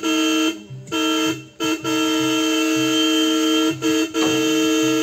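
Vehicle horn honking repeatedly, a steady two-note tone in a few short blasts and then two long ones.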